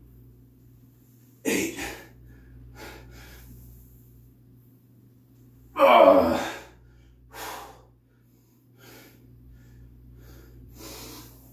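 A man breathing hard in short, sharp gasps and exhales while doing barbell back squats, with a loud voiced grunt falling in pitch about six seconds in.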